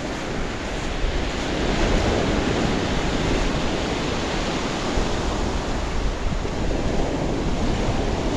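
Sea surf breaking and washing up a pebble beach, a steady rush that swells and eases with each wave, with wind buffeting the microphone in low gusts.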